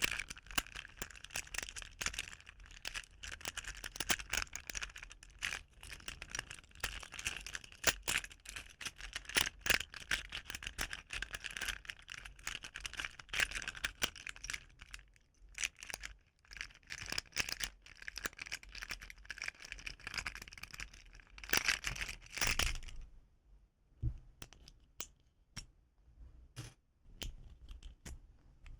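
Plastic keys of a keyboard fidget toy clicking and rattling, rapid and dense for a little over twenty seconds, then single spaced-out clicks near the end.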